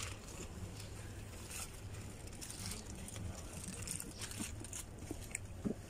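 Quiet background of people eating from foil trays: faint scattered rustles and small clicks of bread being torn and foil handled, over a low steady hum.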